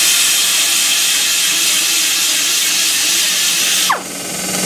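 Handheld pneumatic tool running at full speed with a steady, hissing whine as it bores out a wheel stud hole in a rear wheel hub so an oversized bolt will pass through. Near the end it winds down with a falling pitch, then runs on more quietly.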